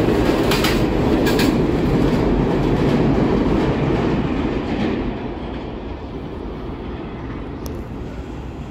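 New York City Subway Z train pulling away: a loud rumble with wheels clacking over rail joints at first, then fading from about five seconds in as the train recedes.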